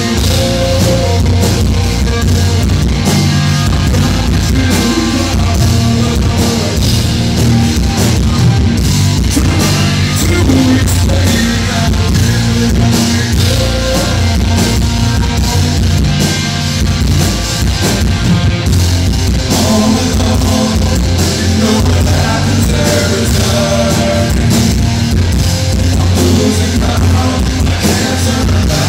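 Rock band playing live and loud: electric guitars, bass and drum kit, with a male singer's vocals over them.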